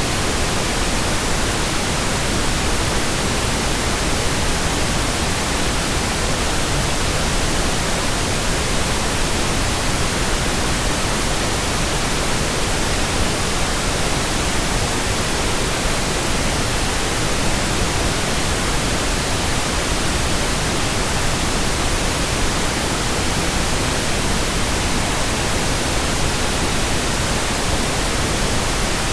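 Steady, continuous white noise: an even hiss across the whole range of pitch, unchanging, with no other sound.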